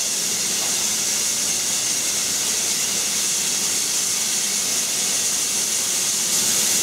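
Steam hissing steadily from the K4 2-6-0 steam locomotive 'The Great Marquess' as it stands with steam escaping, without any exhaust beats.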